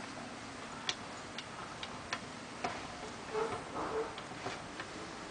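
Light, sharp metal clicks from a tubular lock pick working the pins of a 7-pin tubular lock, about ten of them at an uneven pace.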